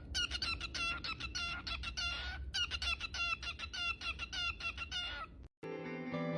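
Many short, high bird calls repeated rapidly and overlapping, over a low hum. They cut off about five and a half seconds in, and music begins.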